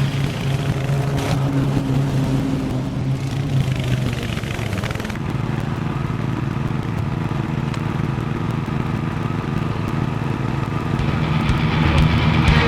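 An engine running steadily, with an even drone and no change in speed.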